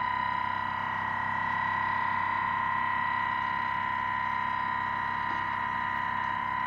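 Homemade flame-heated thermoacoustic resonant engine running and vibrating hard, giving a steady high-pitched tone with a fainter overtone an octave above.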